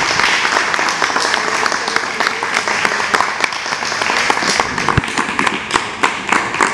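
A small group of people applauding, steady dense hand-clapping, with a single low thud about five seconds in.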